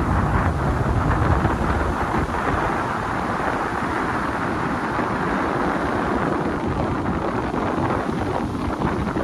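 Ocean surf breaking and washing over rocks at the foot of sea cliffs: a continuous rushing noise. Wind buffets the microphone, and a low rumble is heavier in the first couple of seconds.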